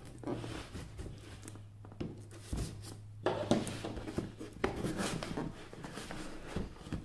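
Box-cutter blade slitting packing tape on a cardboard box while the box is handled: irregular scratchy scraping and rustling with small clicks. A faint low hum stops about three seconds in.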